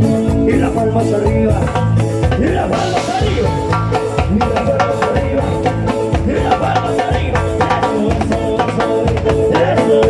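Live amplified Latin dance band playing, with timbales and cymbals driving a steady beat over a pulsing bass line.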